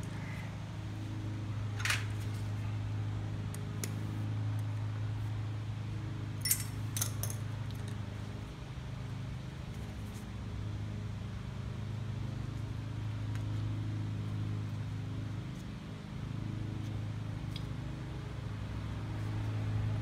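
A steady low mechanical hum, like a running fan, with a few light clicks of small carburetor parts being handled, once about two seconds in and a few more around six to seven seconds in.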